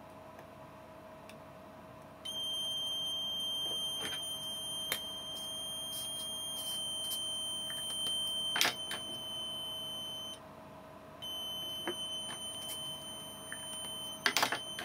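Digital multimeter's continuity beeper sounding a steady high-pitched tone. It starts about two seconds in and holds for about eight seconds, breaks off for a moment, then sounds again near the end. Each tone shows that the socket pin under the probes is connected to ground. A few light clicks of the probe tips on the pins can be heard.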